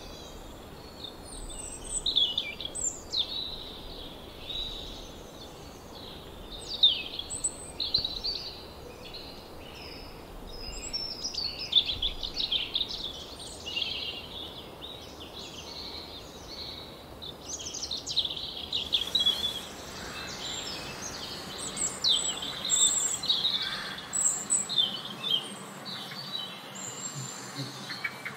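Birds chirping and singing: many short, high calls and trills overlap over a steady background hiss. The background noise changes about two-thirds of the way through.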